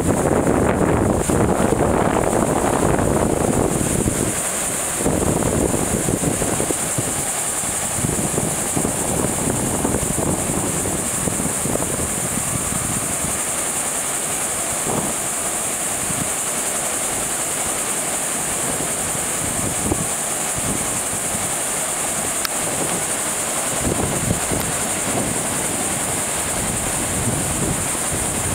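Wind buffeting the microphone over the continuous wash of breaking ocean surf, gusty and heavier for the first few seconds and steadier after. A steady high hiss runs through it all.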